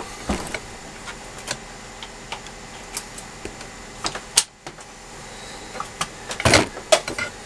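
Scattered light clicks and taps of small tools being handled, with a quick cluster of clatter near the end, over a faint steady hum.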